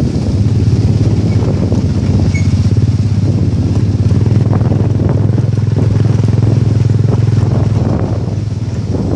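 A small off-road vehicle's engine running steadily under way on a dirt road, with a fast, even putter and some rattle, heard from on board.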